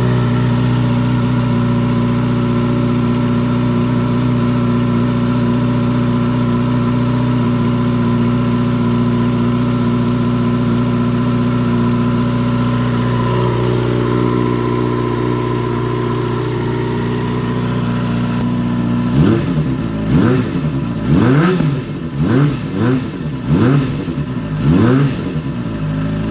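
Kawasaki ZX25R's 250 cc inline-four idling steadily through an RvR Short SE stainless aftermarket exhaust with the dB killer (baffle) removed. In the last seven seconds it is revved in about six quick blips, sounding not too loud.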